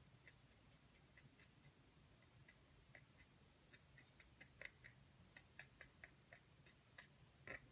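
Faint, irregular tapping and light scratching of a felt-tip marker's nib dabbed on sketchbook paper, a quick run of small ticks that gets busier in the second half, with two slightly louder taps about halfway and near the end.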